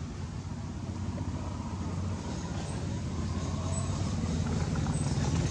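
A low, steady engine rumble that grows a little louder toward the end.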